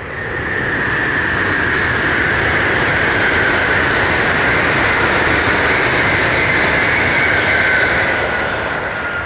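Tokaido Shinkansen bullet train passing at speed. A steady rush of wheel and air noise swells over the first second, holds, and starts to fade near the end, with a high whine that drops a little in pitch as the train goes by.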